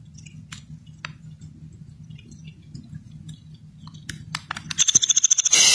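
A faint low hum with a few sharp clicks, then about five seconds in a loud, harsh, rapidly stuttering buzz starts: a crashing Windows virtual machine's sound output stuck looping a short fragment as it falls into a blue screen of death.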